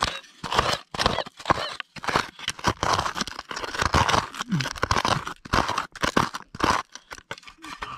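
Plastic scoop scraping and digging into rocky soil, with a quick, irregular run of crunching strokes as dirt and small stones are scooped out of a hole to recover a metal-detector target.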